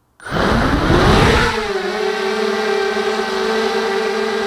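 Motors and propellers of a small DIY 250 mm Y6 multirotor spinning up from standstill at takeoff: a sudden start, the pitch rising for about a second and a half, then settling into a steady whine as it hovers.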